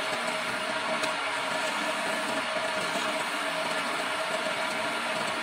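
Homemade wood lathe running steadily, its electric motor giving a constant hum, while a hand-held chisel cuts a spinning wooden stair baluster with a continuous hiss.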